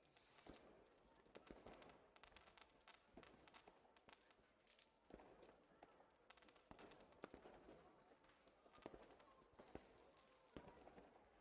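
Fireworks going off faintly: scattered sharp pops and short runs of crackling, irregular throughout, with a brief high fizz about five seconds in.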